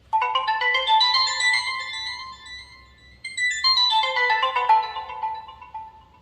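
Alcatel Go Flip 3 flip phone ringtone playing from the phone's speaker: a bright melody of quick notes, played through twice.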